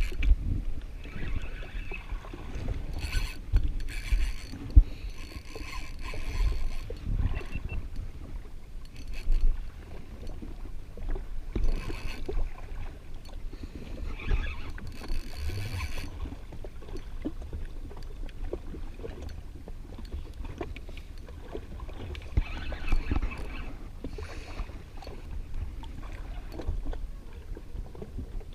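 Low wind rumble on the microphone aboard a drifting jet ski, with scattered knocks and short splashy, hissy bursts of water and gear on the hull.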